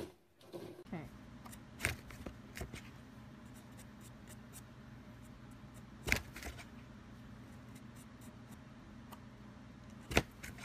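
Sharp knocks and light scratching on a cardboard shoebox, the three loudest knocks about four seconds apart, over a low steady hum.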